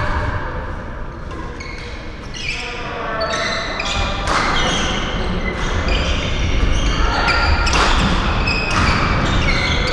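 Badminton play on the surrounding courts: repeated sharp racket strikes on shuttlecocks, mixed with high, short squeaks of court shoes on the sports floor.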